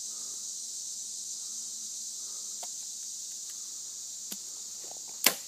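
A steady, high-pitched chorus of insects. Near the end comes a single sharp, loud snap of a bow being shot at a 3D archery target.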